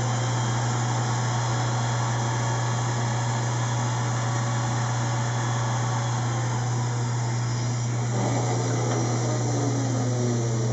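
A loud, steady low hum with an even hiss over it, which cuts off suddenly at the end.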